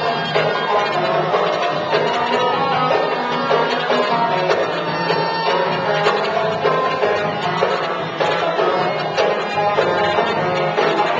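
Live Middle Eastern ensemble playing: an oud melody over a steady goblet-drum (darbuka) rhythm.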